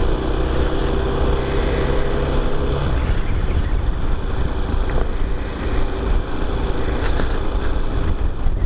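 Chinese motorcycle engine running steadily as the bike pulls away and cruises. It is ridden gently because it is still cold with the choke on. Its tone stands out for the first few seconds, then mostly wind and road noise over the microphone.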